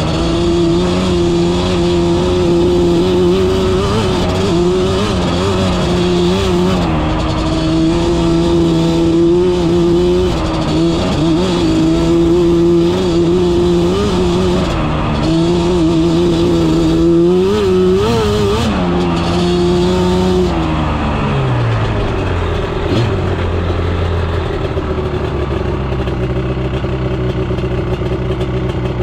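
Yamaha Banshee quad's twin-cylinder two-stroke engine running at steady revs with small throttle changes, rising briefly before the throttle closes about two-thirds of the way in. The revs then fall away and settle to idle.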